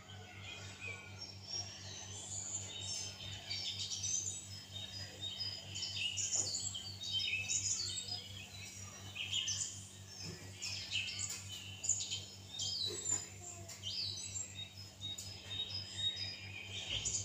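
Many small birds chirping and twittering in quick, overlapping short high notes, over a steady low hum.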